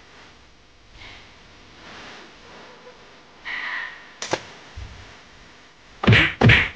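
Faint room noise with a single light click, then two loud, quick whacks about six seconds in as a rubber slipper is slapped down onto a plush toy.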